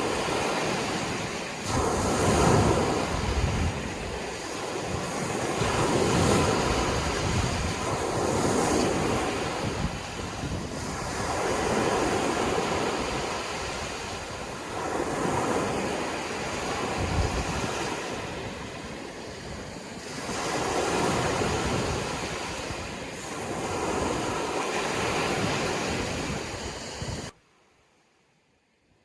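Sea waves washing ashore: a steady rush that swells and falls back every three to four seconds. It cuts off suddenly near the end.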